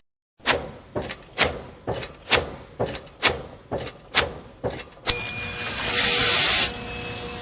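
Industrial machinery: a regular series of about ten sharp knocks, about two a second. These give way to a steady running hum, with a brief loud hiss near the end.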